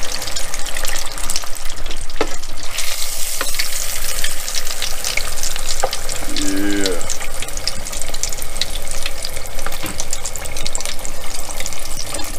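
Beer-battered fish fillets deep-frying in hot oil, a dense steady crackle and sizzle, with a few sharp clicks along the way.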